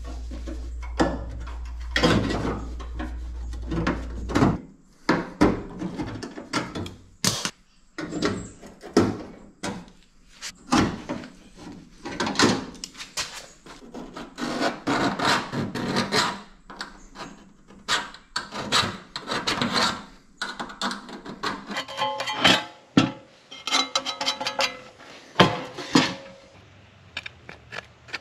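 Sheet-metal work on a thin steel patch panel: irregular clanks, taps and scraping as the panel is handled, trimmed and fitted. A steady low hum stops abruptly about four and a half seconds in.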